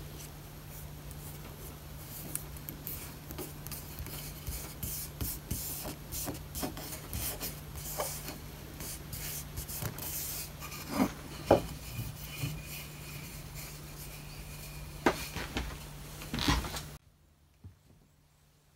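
Palm rubbing and smoothing a paper template flat onto a wooden board: an irregular dry brushing scrape, with a few sharper knocks of the hand on the board in the second half. It cuts off to near silence shortly before the end.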